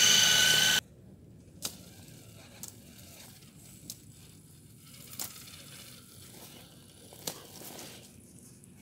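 High-pitched whine of an RC scale crawler's electric motor and gearbox running close by, cut off abruptly under a second in. After that comes a faint low rumble broken by a handful of irregular sharp clicks as a crawler creeps down a slope of dry pine needles and twigs.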